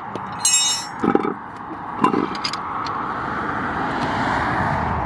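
A car driving past on the road, its rushing tyre and engine noise building through the second half. A brief high whistle and a few clicks come near the start.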